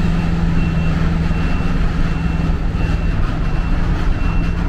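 City bus engine running with a steady low hum, over a short high electronic warning beep that repeats about every three quarters of a second.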